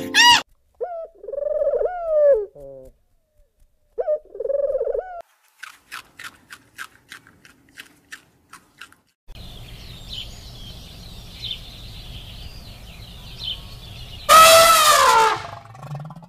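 A series of separate animal calls: two short pitched calls, a run of quick clicks, then faint high chirping over a noisy background, and near the end one loud call that falls in pitch.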